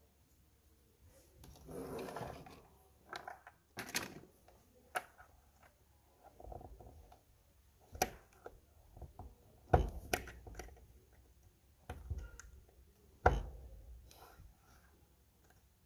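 Small screwdriver scraping and clicking against a rusty volume potentiometer as it is cleaned: a rubbing scrape about two seconds in, then scattered sharp clicks, the loudest near ten and thirteen seconds in.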